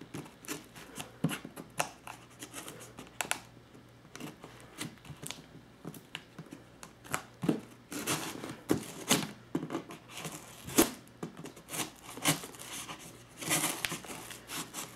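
Knife blade cutting and scraping through the plastic wrap and tape on a cardboard box, a run of irregular short scratches and tears, with a longer tearing stretch near the end.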